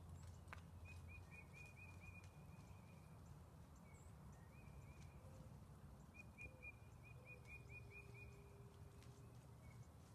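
Quiet outdoor ambience: a low wind rumble on the microphone, with a small bird singing two runs of quick chirps, one near the start and one past the middle.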